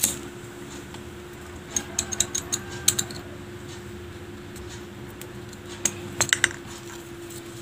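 A lighter being struck, sharp clicks in two short clusters about two seconds in and about six seconds in, over a steady low hum.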